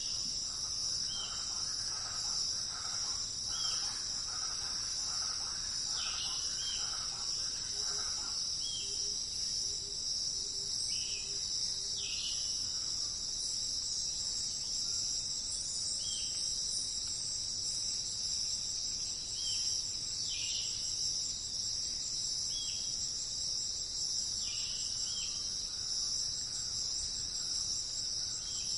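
Steady high-pitched insect chorus, with short bird chirps repeating every second or two over it and a brief spell of softer, busier calls in the first few seconds.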